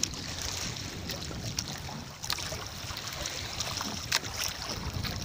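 Wind buffeting the microphone over sea water lapping against a small wooden outrigger boat, with a few light knocks, the sharpest about four seconds in.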